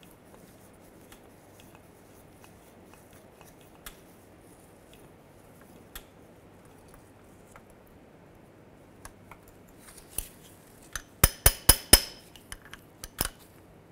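Ratchet wrench with a 4 mm hex bit working a crankshaft position sensor bolt: faint handling at first, then a quick run of about five sharp metallic clicks and one more click near the end.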